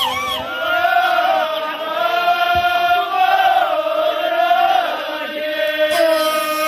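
Ahwach chorus: a row of men chanting in unison, singing long held notes that waver and bend together.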